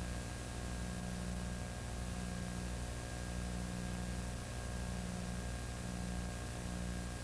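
Steady electrical hum and hiss with no other sound, only the recording's noise floor.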